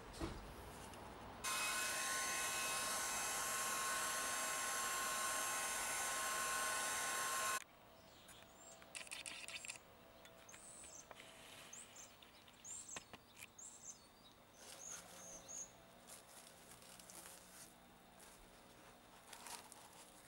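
A loud steady hiss with a faint high whine in it runs for about six seconds and cuts off suddenly. After it, faint bird chirps.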